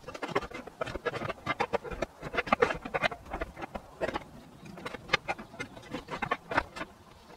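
Irregular clinks and knocks of roof tiles being handled, set down and laid onto wooden roof battens, sometimes several in quick succession.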